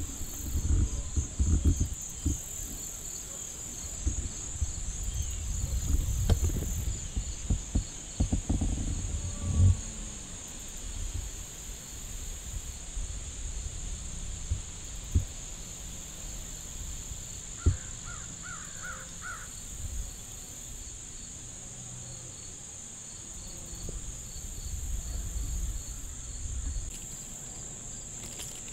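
Steady, high-pitched chorus of insects. During the first ten seconds or so, knocks and rustling come from the camera being handled and moved, and a bird gives a short run of four calls about two-thirds of the way through.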